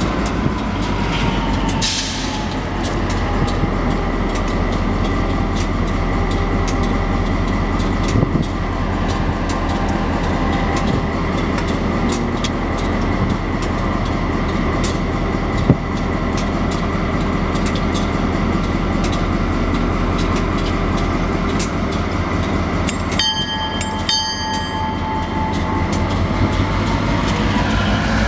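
Canadian Pacific EMD GP38-2 diesel locomotives running, a steady low rumble with scattered small clicks. A tone falls away in the first two seconds, and a brief set of steady ringing tones sounds about 23 seconds in.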